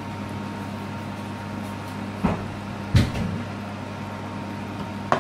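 Steady electrical hum of a kitchen appliance, with three short knocks about two, three and five seconds in.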